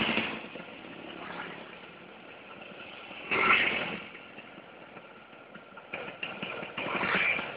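Motor scooters ridden past on a road, engine sound swelling and fading as each goes by; one passes close near the end.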